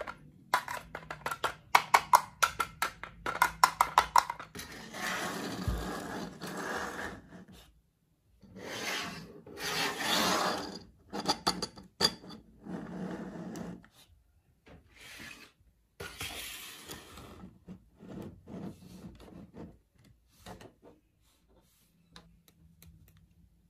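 Hard plastic toy food pieces being handled: a quick run of clicks and clacks as the pieces knock together, then several stretches of plastic scraping and rubbing against plastic, dying away to a few light ticks near the end.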